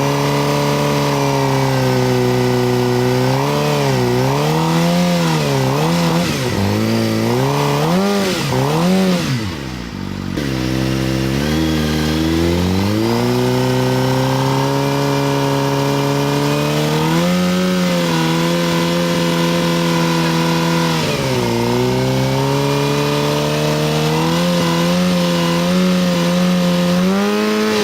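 Motorcycle engine revving hard, the revs rising and falling quickly several times, dropping right down once, then held high for long stretches with one more brief dip.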